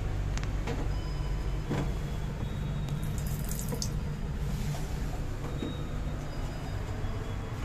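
Water spurts from a small washbasin tap for about a second, roughly three seconds in. Underneath is the train carriage's steady low hum, with a few light clicks and knocks early on.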